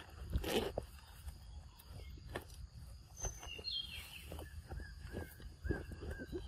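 Young macaque eating a ripe mango: wet chewing and smacking. A bird repeats a short chirp about twice a second from about two-thirds of the way in, over a steady high background hum.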